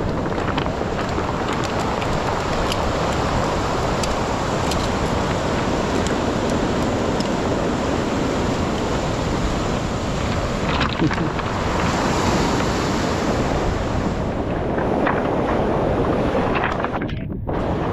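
Surf washing onto a beach of rounded cobbles, with wind rushing over the microphone. Faint clacks of stones underfoot come now and then.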